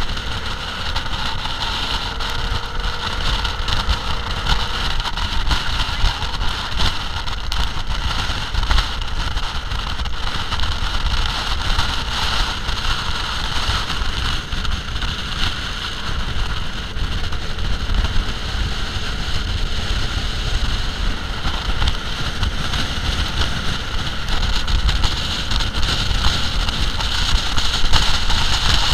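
VW dune buggy's air-cooled flat-four engine running steadily at speed, mixed with wind buffeting on the microphone.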